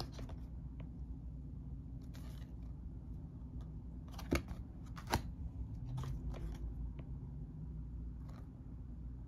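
Square card map tiles being handled: a few short taps and slaps of card against card and the wooden tabletop, the sharpest two about four and five seconds in, over a low steady hum.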